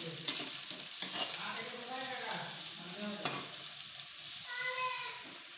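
Sliced mushrooms sizzling in hot oil in a kadai while a metal spatula stirs them, with a few sharp scrapes and knocks of the spatula against the pan.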